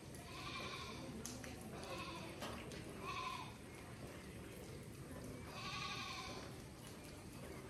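Faint animal calls in the background: about four short, drawn-out cries a second or two apart, the longest about six seconds in.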